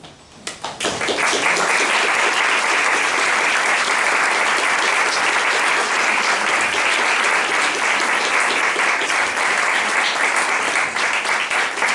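Audience applauding, the clapping breaking out about a second in and staying dense.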